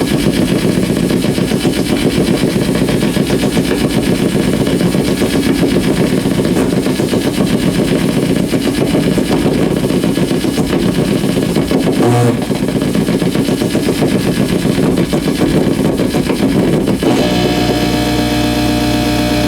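Compact fluorescent bulbs flickering on dimmer switches, which they cannot properly dim, with the electrical bursts picked up by exposed guitar cables and amplified without effects. The result is a dense, rapid crackling pulse that shifts about 17 seconds in to a steadier hum with held piercing tones.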